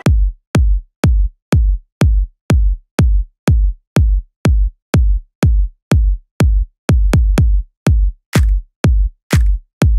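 Electronic dance music: a deep kick drum beating steadily about twice a second, with lighter swishing hits on some beats near the end.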